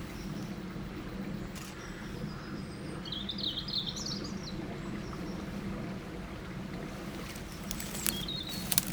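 River running steadily past, with a small bird singing a short rapid warbling phrase about three seconds in and a brief snatch again near the end. A few sharp clicks cut through, the loudest near the end.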